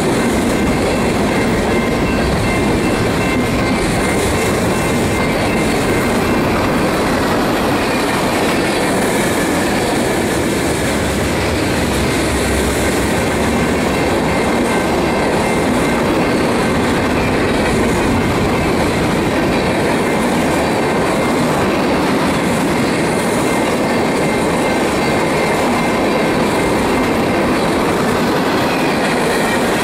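Freight cars of a mixed manifest train (tank cars, boxcars and covered hoppers) rolling past close by at steady speed: a continuous rumble and clatter of steel wheels on the rails, with a faint high squeal from the wheels on the curve.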